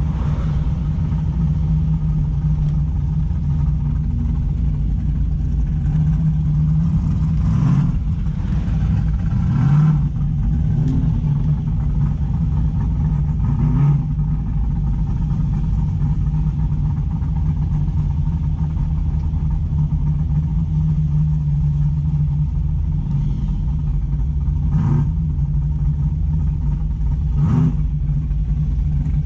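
Car engine running steadily while cruising, with about five short blips of revving along the way.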